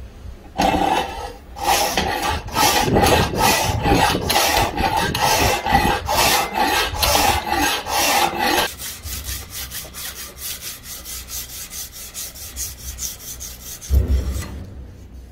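A round file worked by hand across a steel knife blade, rasping in strokes about two a second. About nine seconds in, the strokes turn lighter and quicker, and a single thump comes near the end.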